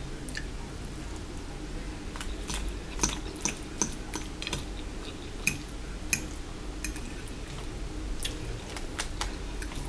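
Close-miked eating: a metal fork clicking and scraping on a glass plate as food is scooped, with wet mouth clicks of chewing, heard as scattered sharp clicks from about two seconds in.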